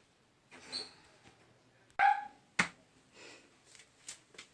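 A single short, loud dog bark or yip about two seconds in, followed by a few sharp knocks.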